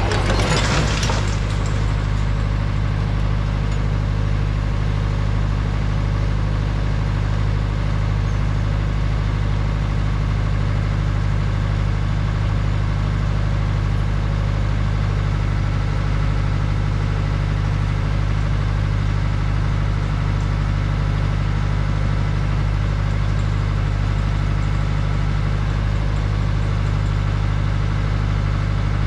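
Boart Longyear DB100 crawler drilling rig's engine idling steadily with a low, even hum. Its steel tracks clatter briefly at first, stopping about a second in as the rig halts.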